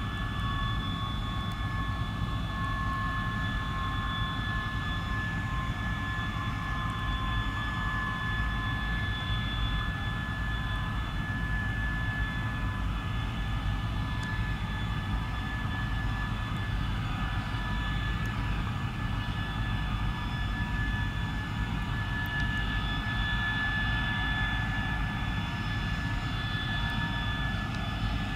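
de Havilland Venom's Ghost turbojet whining steadily at taxi power: a high steady whine with a higher whine above it and a lower tone that sinks a little at the start, over a constant low rumble.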